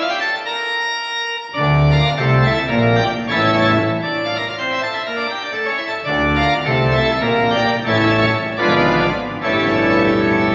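A digital church organ playing full sustained chords, with deep bass notes coming in about a second and a half in and the harmony moving every second or so.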